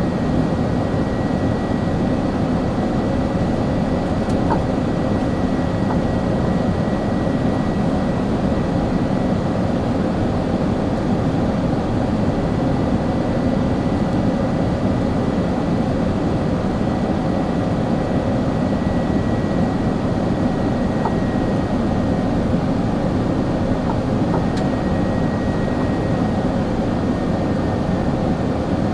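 Steady cabin noise inside an Airbus A380 in flight: an even rush of airflow and engines, with a thin steady whine above it and a few faint ticks.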